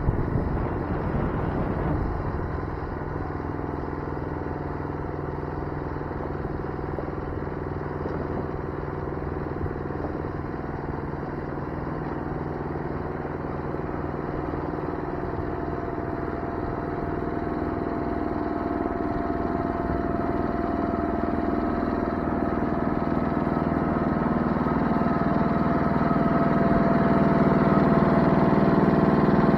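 An engine running steadily, growing gradually louder over the second half.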